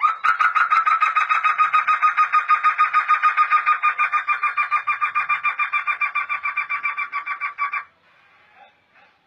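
Black laughingthrush (poksay hitam) singing a fast, even run of repeated notes, about eight a second, for some seven and a half seconds, then stopping abruptly.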